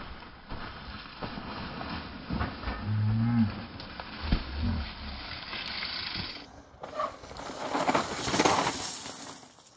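Mountain bike tyres rolling, crunching and skidding on a rocky dirt trail and loose gravel, loudest as a long skid near the end. About three seconds in there is a short low groaning tone.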